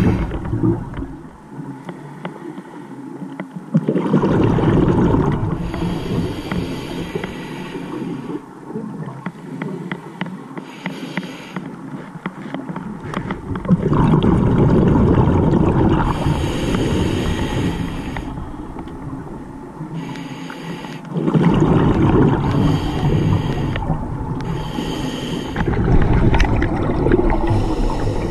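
Scuba regulator breathing heard underwater: three long surges of gurgling exhaled bubbles, several seconds each, with quieter stretches between the breaths.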